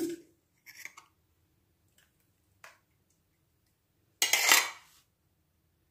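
Steel spoon scraping and clinking against a stainless steel mixer-grinder jar while thick ground spinach paste is emptied onto a steel plate: a few faint clinks, then one louder scrape about four seconds in.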